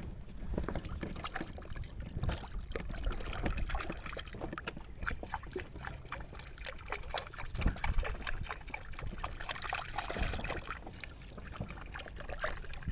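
Water lapping and sloshing against the hull of an inflatable rubber boat, with scattered small knocks and clicks.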